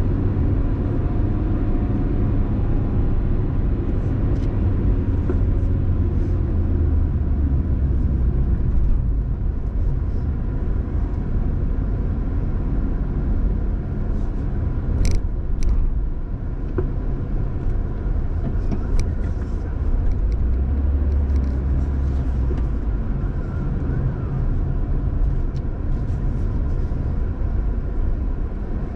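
A car driving along a road: a steady low rumble of engine and tyres, with a couple of brief light clicks about halfway through.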